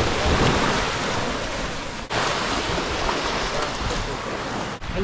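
Small waves washing onto a sandy beach, with wind on the microphone. The sound drops out briefly twice, about two seconds in and near the end.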